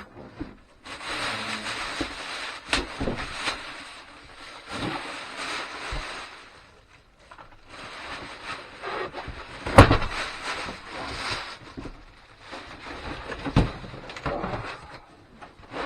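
Cardboard box and packing being handled and rummaged through, rustling and scraping in uneven spells, with a sharp knock about ten seconds in and a smaller knock a few seconds later.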